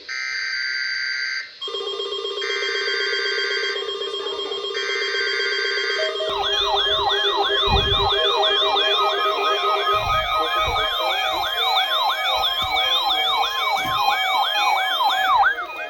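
Several weather-alert radios sounding their alarms at once. It starts as pulsed steady beeps, about one second on and a shorter gap off, with a steady lower tone joining under them. About six seconds in, overlapping siren-like sweeping warbles take over, about two a second: the receivers activating on a required weekly test alert.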